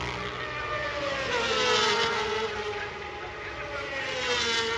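Racing superbikes going past at speed, their high engine notes sweeping up and down in pitch as they pass. One pass is loudest about two seconds in, and another comes near the end.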